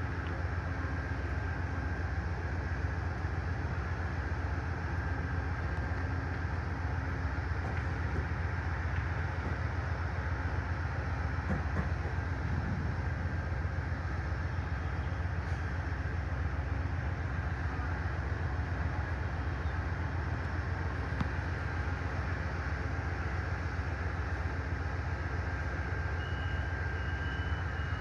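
Amtrak passenger train with a General Electric P42DC diesel locomotive, running steadily with an even low hum and no change in pitch or level.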